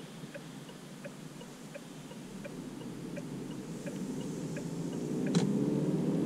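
Turn-signal indicator of a DongFeng Forthing T5 EVO ticking steadily, about three ticks a second, heard inside the cabin, stopping with a sharper click about five seconds in as the wheel straightens. Under it the 1.5-litre turbo engine grows louder and rises in pitch as the car pulls away.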